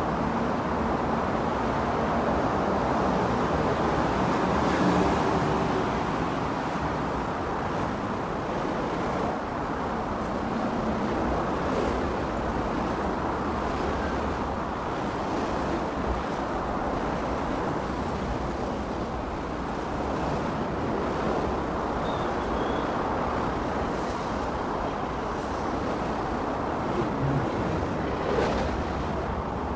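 Steady hum of road traffic, with a few faint knocks and clicks.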